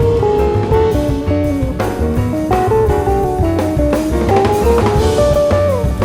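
Instrumental jazz band playing: a guitar carries a stepping melody over drum kit and double bass, the melody sliding down near the end.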